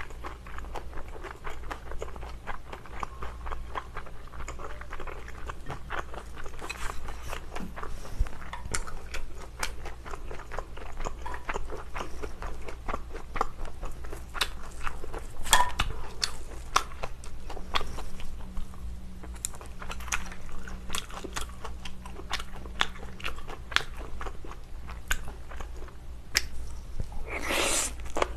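Close-miked eating: chewing a spoonful of rice with spicy stir-fried glass noodles, then biting and crunching a large piece of cabbage kimchi, with many small irregular clicks and one louder bite near the end.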